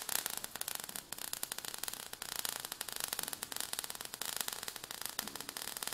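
Sound effect of crackling sparks: a fairly quiet, dense, irregular crackle of tiny clicks over a hiss.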